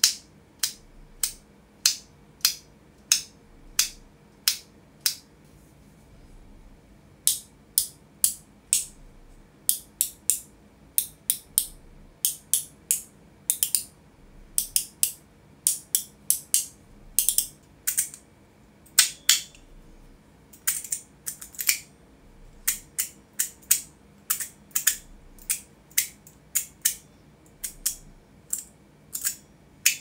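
Hand-held fidget clickers being clicked one after another: first a haptic coin clicking steadily about every half second, then after a short pause a Rocker Plus clicker and other clickers snapping in pairs and quick runs of sharp, bright clicks.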